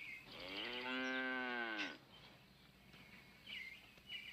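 A cow mooing once: one long moo of about a second and a half that rises and then falls in pitch.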